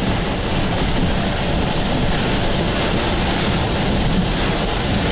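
Strong rear-flank downdraft winds and heavy rain buffeting a car driving through a severe thunderstorm, heard inside the cabin as a steady, loud roar with a heavy low rumble.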